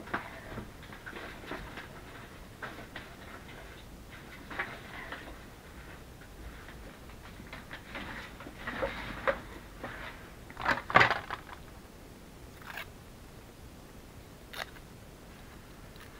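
Scattered light taps and rustles from handling craft supplies at a work table, with a sharper, louder sound about eleven seconds in.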